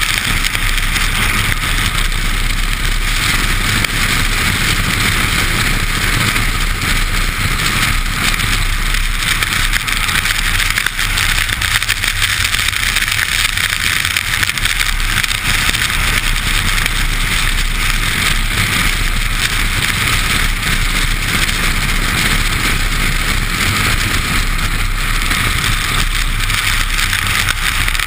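Steady rush of wind and wet-road tyre noise at a camera mounted outside a car near its wheel, at speed on a rain-soaked track, with a low rumble underneath.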